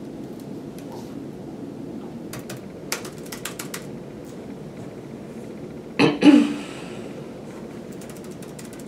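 Computer keyboard keys clicking in a short irregular burst over a steady low room hum, then one short loud thump about six seconds in.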